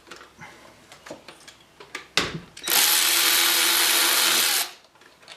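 A power drill-driver runs steadily for about two seconds, spinning out a 10 mm bolt, after a few light tool clicks and a sharp knock.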